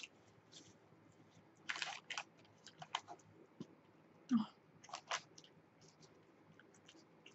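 Close-up eating sounds from someone eating a hoagie: scattered wet mouth clicks and chewing, with a few short rustles of the sandwich's paper wrapping and napkin, the loudest about two seconds in and again a little after four seconds.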